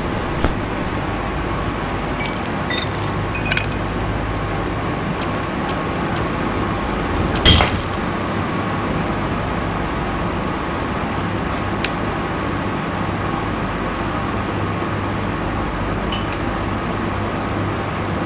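A few light glass clinks, then one loud sharp knock of glass set against a table about seven and a half seconds in, with a couple of faint ticks later, over a steady background hum.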